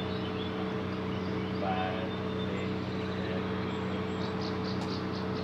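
Steady low mechanical hum, even in pitch and level, like an idling engine or running machinery. A quick run of faint high ticks comes near the end.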